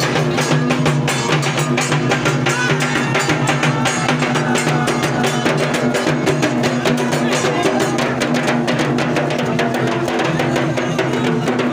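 Loud procession music: fast, continuous drumming over a steady droning tone.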